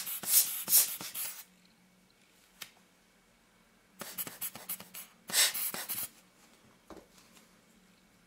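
Two bursts of scratchy rubbing and handling noise as small lens parts are worked by hand, the second about four seconds in, with a lone click near the end.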